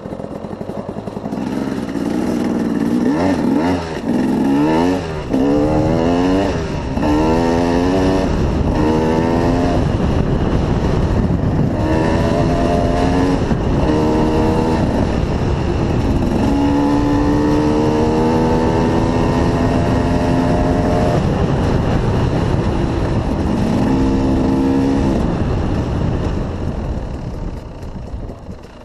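KTM 300 two-stroke dirt bike engine under way, its pitch climbing again and again as it revs up through the gears, holding a steady pitch for a few seconds in the middle, then backing off near the end.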